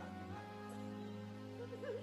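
Soft background music with steady, sustained notes.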